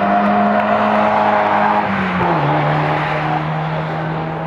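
Car engine running at steady revs over tyre and wind noise, its note dropping to a lower steady pitch about halfway through.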